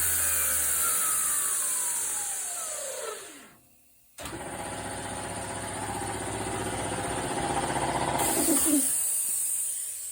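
Belt grinder's electric motor and belt winding down under the motor brake, the whine falling in pitch over about three seconds to a stop. About four seconds in it starts abruptly again and runs for about four seconds, then brakes quickly to a stop again near the end.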